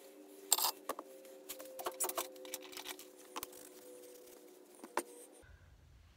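Cloth rag rustling as it wipes an alloy cylinder barrel on a motorcycle engine, with small clicks and knocks of handling, over a faint steady hum. Everything stops abruptly about five seconds in.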